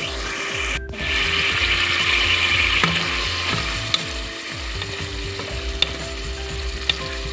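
Tuna, onion and chili pepper mixture sizzling in a metal pot while being stirred with a wooden spoon. The sizzle is loudest in the first few seconds, and the spoon knocks lightly against the pot a few times.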